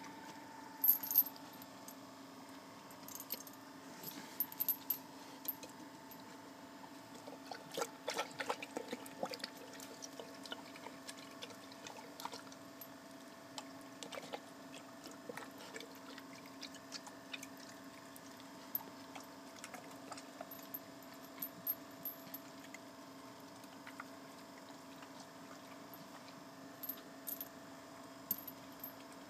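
A dog's metal chain clinking and jangling in irregular clusters as the pit bull moves, with some lapping of liquid from a metal pot, over a faint steady hum.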